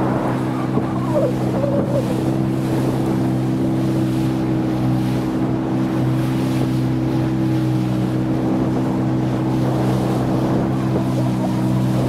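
Boat's outboard motor running at a steady pitch, pushing upstream through river rapids, with water rushing past the hull.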